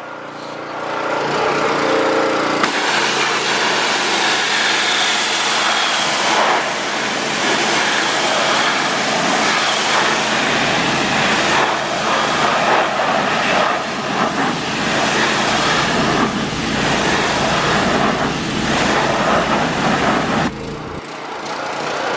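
Pressure washer running, its wand's jet blasting water onto a car wheel and tyre to rinse off degreaser. The spray starts about three seconds in and cuts off about two seconds before the end, over the machine's steady engine hum.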